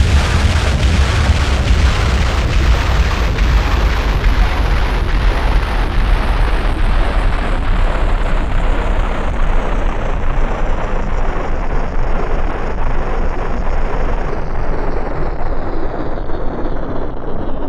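Dense, harsh noise from piezo contact pickups on a desk, mangled through audio effects plugins. The treble slowly closes off and the deep rumble thins out as it goes.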